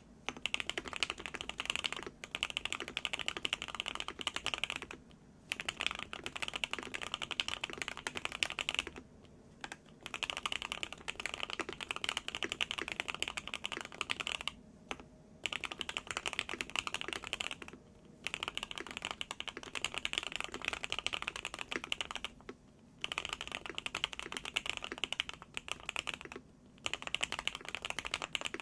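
Fast continuous typing on a Qwertykeys QK65 mechanical keyboard with hand-lubed Gateron Oil King linear switches on a POM plate, broken by brief pauses every few seconds.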